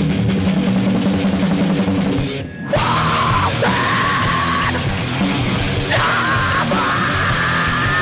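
Live heavy rock band playing loud distorted music through a concert PA. The sound thins briefly about two and a half seconds in, then comes back with long, high held notes over the full band.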